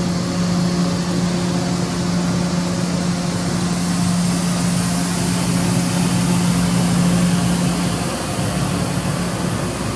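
Makino V55 5-axis machining center under power, giving a steady mechanical hum with a hiss above it; about eight seconds in the hum's main tone fades out.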